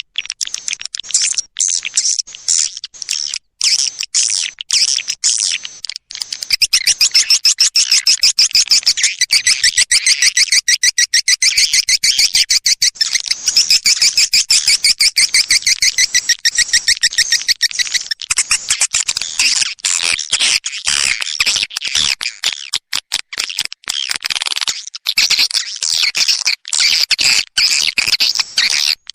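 Recorded twittering of edible-nest swiftlets: rapid, dense chirps and clicks, sparse at first and then a continuous, louder chatter from about six seconds in. It is a lure call, played to draw swiftlets into a swiftlet house.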